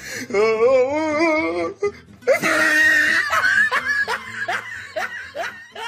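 A person laughing hard. It starts as a long wavering peal, breaks into a shrill shriek about two seconds in, then goes on as a run of short, falling 'ha' bursts.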